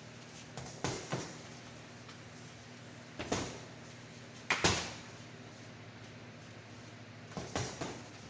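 Short, sharp knocks in four small groups of two or three, the loudest group about halfway through, over a faint steady hum.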